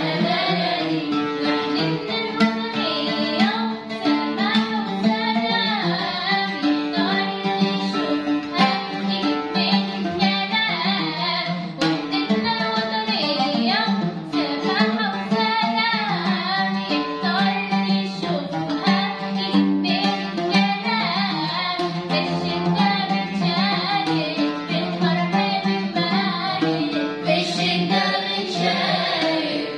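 A children's choir singing a song in Arabic, with instrumental accompaniment.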